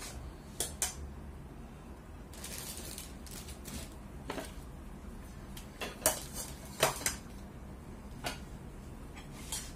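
Chopsticks and utensils clinking against a hot pot and ceramic bowls: scattered sharp clinks, the two loudest about six and seven seconds in.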